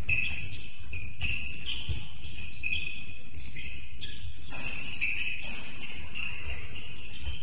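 Basketball shoes squeaking on a gym floor in many short, high-pitched chirps during play, over dull thuds of feet and the bouncing ball.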